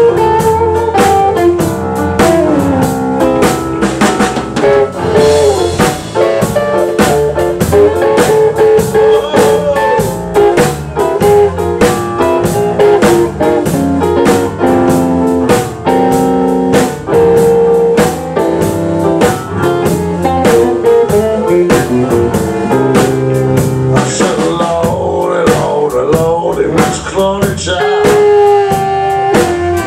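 Live band playing an instrumental passage: a hollow-body electric guitar with a Bigsby vibrato plays a moving melodic line over a steady drum kit beat.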